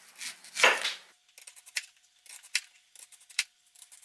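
Chef's knife slicing a raw white onion into thin rounds on a plastic cutting board. Each stroke is a short, crisp cut ending in a light tap on the board, about two a second, with a louder stroke about half a second in.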